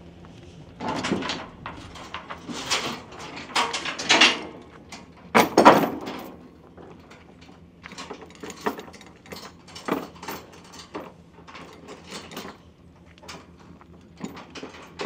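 Steel tie-down chains and chain load binders clanking and rattling against the trailer's wooden deck as they are unhooked from a tractor, in irregular sharp clanks with the loudest clatter about five or six seconds in.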